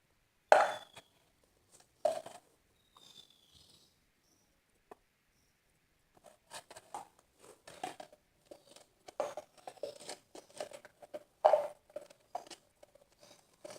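Homemade slime being stirred and squished as it begins to clump: sticky, wet clicks and smacks. There are sharp ones about half a second and two seconds in, a quiet few seconds, and then a steady run of small clicks with one louder smack near the end.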